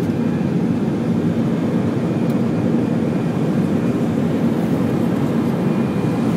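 Airbus A320 cabin noise in the climb after takeoff: the steady low drone of the jet engines and rushing airflow, heard from a window seat beside the wing.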